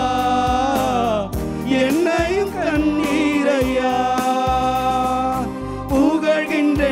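A Tamil Christian worship song: a man sings long, wavering held notes into a microphone over instrumental backing with a steady beat.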